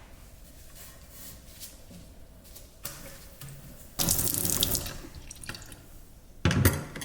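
Kitchen tap turned on briefly, water running and splashing into the sink about four seconds in and fading away, then a second short gush near the end.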